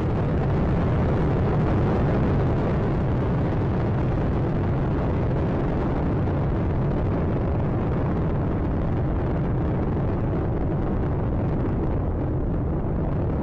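Space Shuttle Atlantis's twin solid rocket boosters and three main engines firing during ascent: a loud, steady, deep rumbling noise that dulls slightly in the highs near the end.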